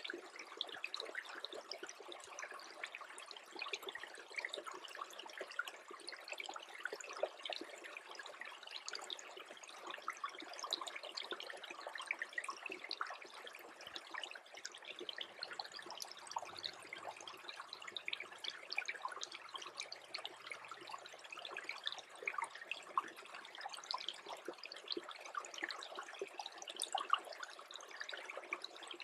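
Small freezing brook trickling steadily, a dense run of tiny splashes and gurgles with no pauses.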